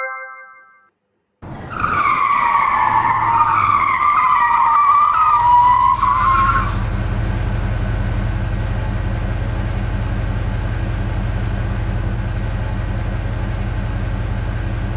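Car sound effect: a wavering tyre squeal lasting about five seconds over a steady low engine hum, which continues alone once the squeal stops. A chime fades out just before it begins.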